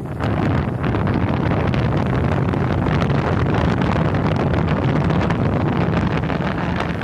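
Wind rushing over the microphone of a phone held out from a moving motor scooter, a steady buffeting noise that drowns out most other sound.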